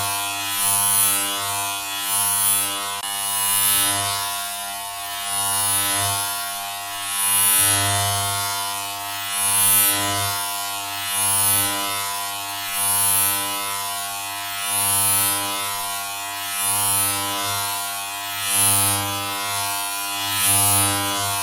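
Steady, buzzy electric hum that swells in loudness about every one and a half to two seconds, with a brief hiss at each swell.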